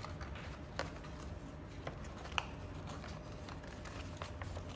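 Folded paper being handled and pressed together by hand: faint scattered rustles and crinkles with a couple of sharper paper clicks, over a low steady room hum.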